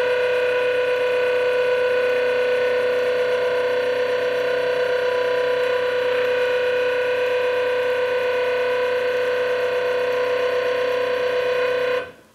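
Stepper motors of a CNC XY stage driving its lead screws slowly in a diagonal move, giving off a steady, unchanging high whine with several pitches. It cuts off suddenly near the end.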